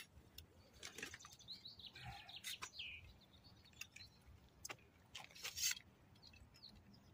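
Quiet riverbank with a few short bird chirps about two to three seconds in, and scattered light clicks and knocks from metal rod rests being handled.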